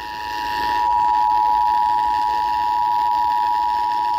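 Emergency Alert System two-tone attention signal, 853 Hz and 960 Hz sounded together as one loud, steady, harsh tone over faint radio hiss, the warning that comes before an emergency alert message.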